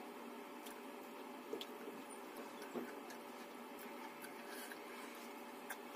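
Faint eating sounds: a few soft clicks and squishes as fingers pick at food scraps on a banana leaf, over a faint steady hum.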